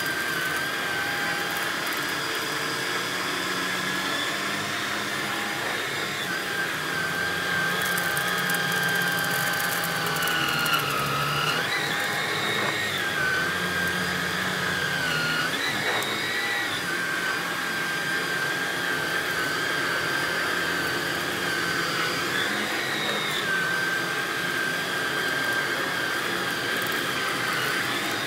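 Stick vacuum running over a shag rug with a steady motor whine that sags briefly in pitch several times as the floorhead is pushed into the pile. A patter of small clicks about eight to ten seconds in is rice sprinkled on the rug being sucked up.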